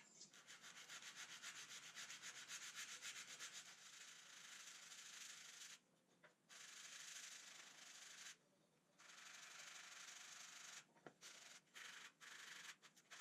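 Faint hand sanding of the wooden drawer piece with sandpaper: quick back-and-forth strokes, about four a second at first, then steadier, stopping briefly twice, with a few light knocks near the end.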